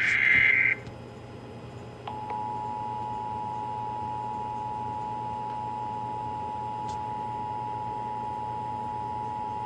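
The last burst of an Emergency Alert System SAME header, a harsh digital data screech, cuts off just under a second in. About two seconds in, the EAS two-tone attention signal (853 and 960 Hz sounded together) begins and holds steady, announcing the alert message of a Required Monthly Test.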